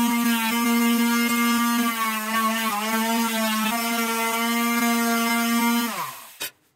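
Small handheld electric sander running steadily against a metal bracket to smooth its edges, its motor hum wavering slightly as it is pressed on. About six seconds in it is switched off and winds down with a falling pitch.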